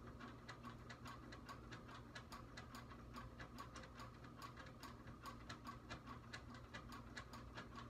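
Faint, even ticking, about four ticks a second, like a mechanical clock, over a low steady room hum.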